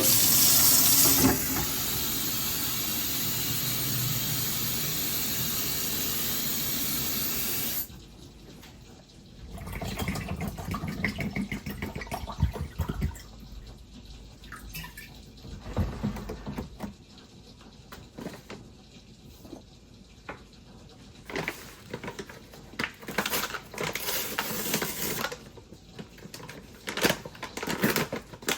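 Water running from a kitchen tap for about eight seconds, then shut off suddenly, followed by scattered light knocks and clatter of things being handled.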